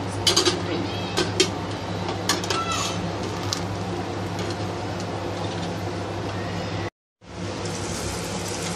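Skimmer spoon knocking against a steel cooking pot as boiled pasta is scooped out: several sharp clinks in the first few seconds over a steady low hum. The sound cuts out completely for a moment about seven seconds in.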